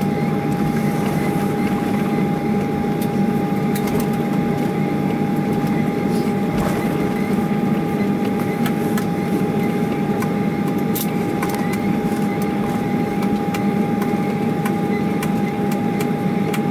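Steady cabin drone of a jet airliner taxiing after landing, engines at idle, with a constant high whine running through it and a few faint rattles.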